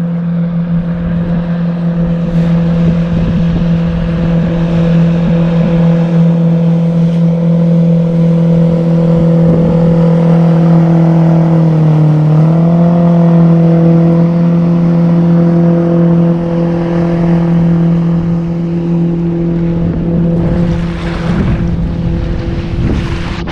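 Outboard motor of a passing jon boat running steadily at speed, growing louder toward the middle and easing off near the end, its pitch dipping briefly about twelve seconds in.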